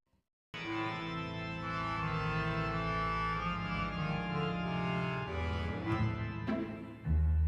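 Background music of slow, held chords that change every second or two, starting after about half a second of silence; a deeper bass note comes in near the end.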